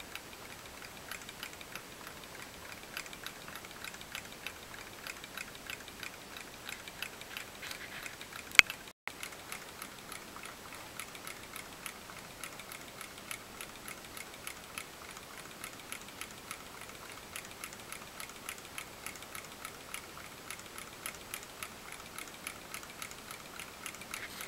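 Small brass model Stirling hot-air engine running, its mechanism making a fast, even ticking. One louder click stands out about a third of the way in, just before a brief break in the sound.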